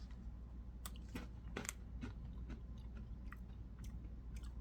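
Person chewing spiced crackers: a run of faint, irregular crunches.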